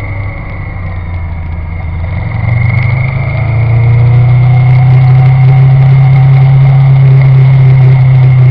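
Vehicle engine running with a steady high whine, the abnormal noise under investigation. The engine gets louder from about two and a half seconds in, then holds steady.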